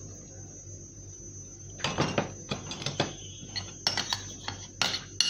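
Metal spoon stirring a liquid marinade in a ceramic bowl, clinking against the sides. The clinks start about two seconds in and come irregularly, a few a second.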